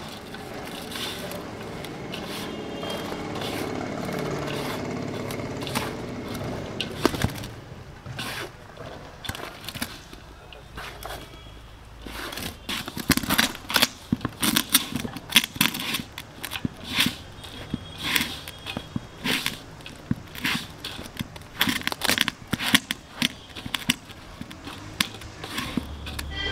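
A hand mixing sliced onions into dry gram flour and rice flour in a large aluminium pot: rustling, crunchy scraping strokes of the mix against the pot. The strokes grow sharper and come several times a second in the second half.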